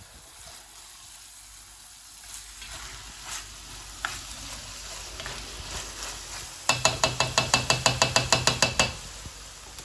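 Lean mince frying with a faint sizzle in a stainless steel pan while a spoon stirs and scrapes it, with scattered small clicks. Near the end, a loud fast run of sharp strokes, about seven a second, for about two seconds.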